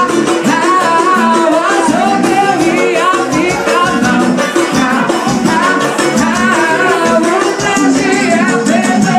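Forró music from a live band, with a woman singing lead over the band and a fast, steady rattling percussion beat.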